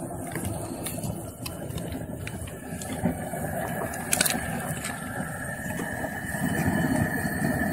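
Propane turkey-fryer burner running steadily under a pot of boiling water, with a few small splashes and knocks as quartered onions are dropped into the strainer basket.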